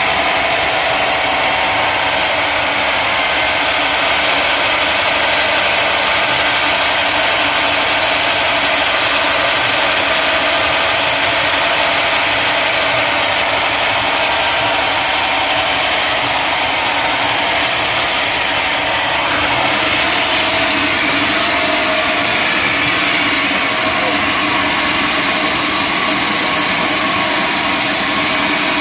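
Sawmill machinery running steadily, sawing acacia wood, with an even mechanical noise that holds at one level throughout.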